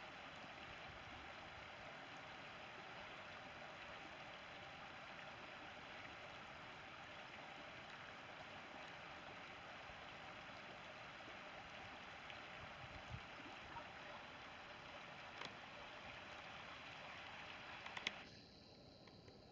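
Shallow river running over a gravel bed: a faint, steady rushing of water that stops abruptly with a click near the end.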